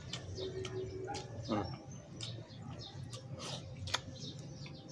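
Small birds chirping in the background, a scatter of short high chirps, with a sharp click near the end.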